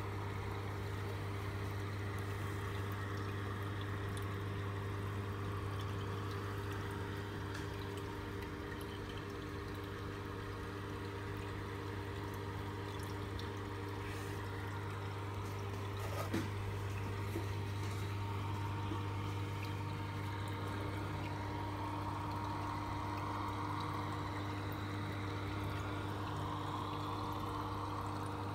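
Reef aquarium's circulation and return pumps humming steadily, with water trickling and splashing through the tank's plumbing. A single light tap about halfway through.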